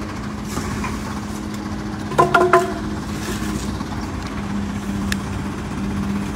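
Vehicle engine idling with a steady hum. About two seconds in there is a brief, loud, pitched sound in three quick pulses.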